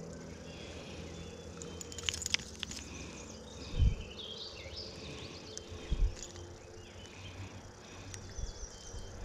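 Woodland outdoor ambience: birds chirping and insects over a low steady background, with two dull low thumps about four and six seconds in.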